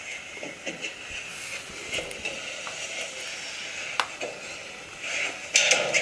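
Faint scattered clicks and knocks of a camera being handled, with one sharper click about four seconds in, over a light hiss.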